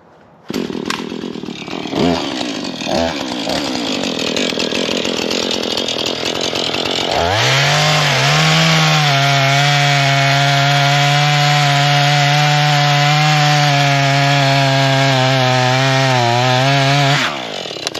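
Husqvarna 440 two-stroke chainsaw comes in suddenly and runs unsteadily at lower speed, then is throttled up about seven seconds in and held at a steady full-speed whine while sawing wood, dropping back near the end.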